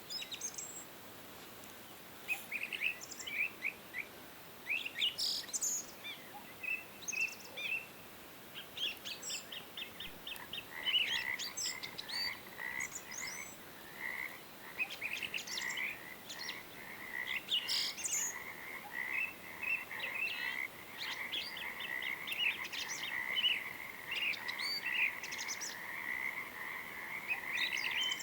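Outdoor nature sound: birds chirping and calling, joined about ten seconds in by a steady, fast-pulsing chorus of croaking frogs.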